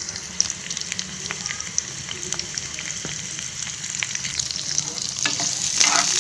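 Chopped onions and garlic cloves sizzling in hot oil in a frying pan, a steady hiss with many small crackles that grows louder near the end as a steel ladle stirs them.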